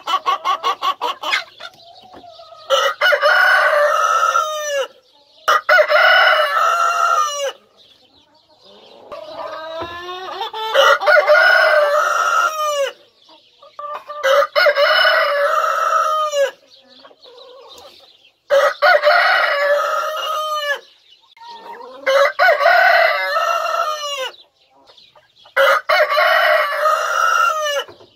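Rooster crowing over and over, about seven crows each about two seconds long, with hens clucking between them and a run of quick clucks at the start.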